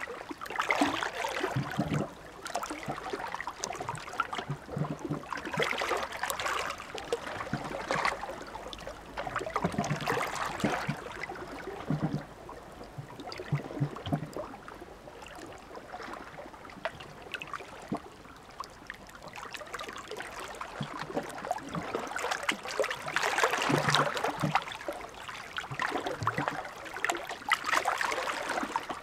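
Small sea waves washing onto the shore, swelling and fading every couple of seconds, quieter around the middle and loudest in the last third.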